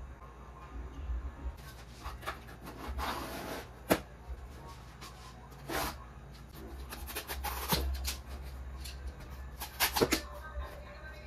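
Corrugated cardboard pieces being handled on a workbench: brief rustles and scrapes with scattered sharp clicks and knocks, one sharp knock about four seconds in and a run of clicks near the end, over a steady low hum.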